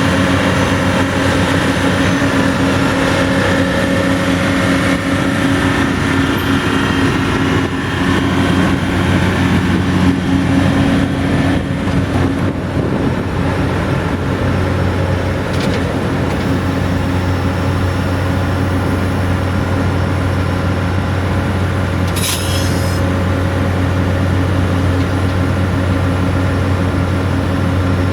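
Diesel engine of a Roadtec RP190 rubber-tired asphalt paver running steadily, with a short hiss about three quarters of the way through.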